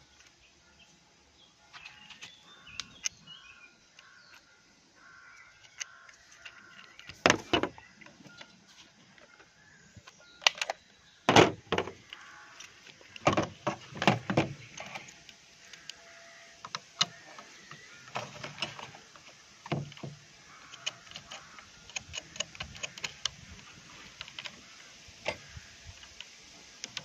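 Hard plastic and metal clicks and knocks as a 3D-printed dovetail side mount is handled and fitted onto the side of an airsoft AK, with the loudest knocks about 7, 11 and 13 to 14 seconds in. Near the end, a screwdriver turns the mount's screw.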